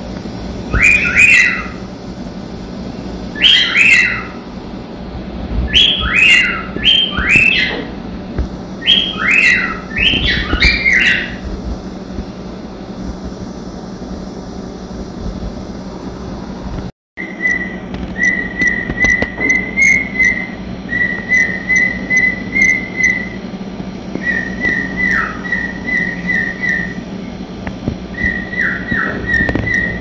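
Cockatiels whistling: bursts of quick, falling whistled notes, then after a break a long run of short chirps repeated at one pitch, about three a second, over a steady low hum.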